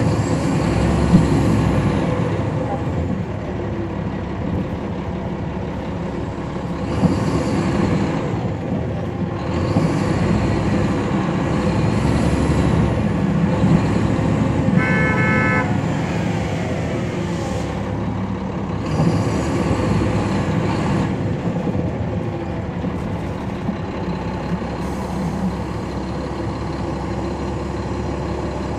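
Caterpillar C13 ACERT diesel engine of a 2009 NABI 40-SFW transit bus with a ZF Ecomat automatic transmission running steadily, its pitch rising and falling a few times, with stretches of hiss. A short tone sounds for about a second about halfway through.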